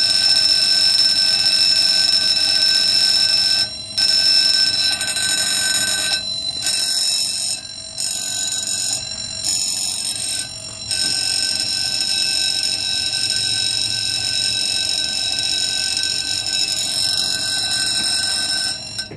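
Railway level-crossing warning bell ringing continuously, warning of an approaching train while the crossing barriers lower.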